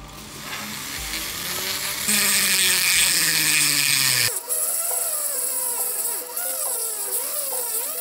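Small hand-held rotary tool with a cutting disc running and cutting into hard black plastic. Its high hiss and motor whine waver up and down in pitch as the disc bites into the material.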